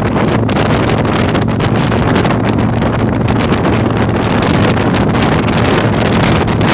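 Heavy wind buffeting the microphone on a moving Yamaha Virago 1100, over the steady low drone of its V-twin engine at an even cruising speed.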